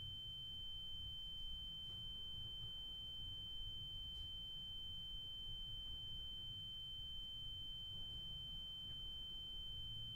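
A steady, high-pitched pure electronic tone, like a sine-wave beep held without a break, over a faint low rumble.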